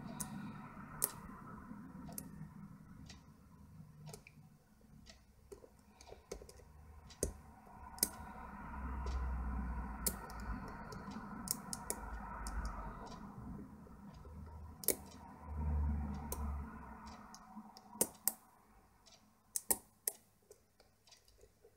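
Irregular small sharp clicks and ticks from a steel pick working the pin tumblers of a Euro cylinder lock under light tension: pins setting during single-pin picking. A low handling rumble comes in twice.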